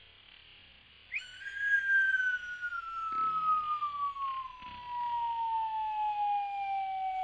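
A siren-like whistling tone starts suddenly about a second in, rises briefly, then slides slowly and steadily lower in pitch, like a siren winding down.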